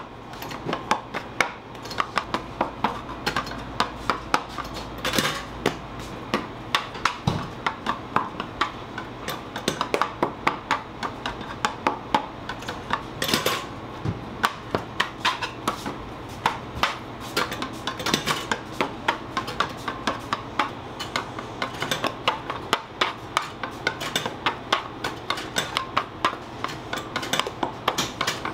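Quick, fairly regular taps and knocks on a work surface, about three or four a second, from bread dough being shaped by hand at a workbench, over a steady low machine hum.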